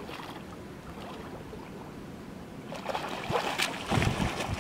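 Wels catfish splashing and thrashing at the water's surface beside a boat, in several bursts starting about three seconds in and loudest near the end. Before that there is only faint wind and water.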